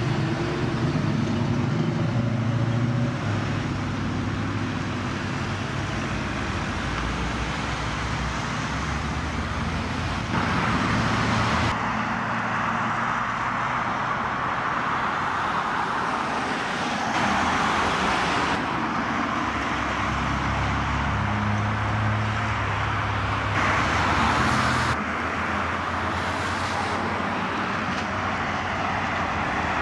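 A series of cars driving past one after another, with engine hum and tyre noise on the road. The sound changes abruptly several times as one pass gives way to the next.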